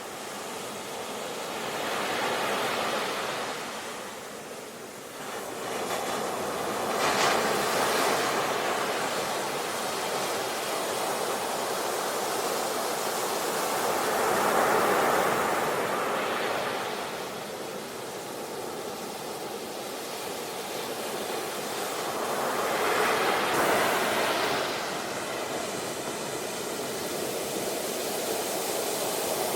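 Sea waves washing onto the shore, a steady hiss of surf that swells and falls back in slow surges, with about four waves cresting several seconds apart.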